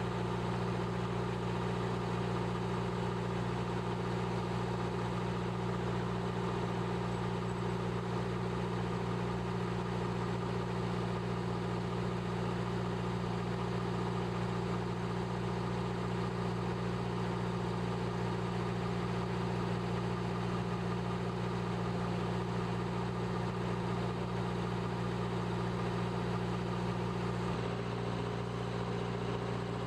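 A steady mechanical hum with several held tones, unchanging in level, whose tone shifts slightly near the end.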